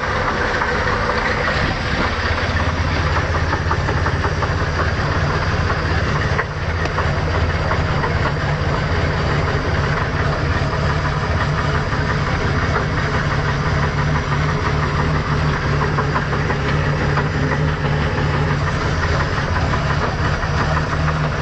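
OMC Cobra 4.3 V6 sterndrive engine idling steadily just after a cold start, with a knock running through it. The engine is damaged and still warming up. The level dips briefly about six seconds in.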